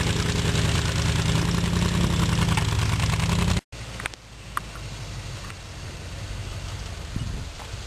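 Classic Range Rover's engine running loud and steady as it drives through mud, cut off abruptly a little after three seconds in. Then a Land Rover Discovery's engine is heard much more quietly from further off, with a few light clicks.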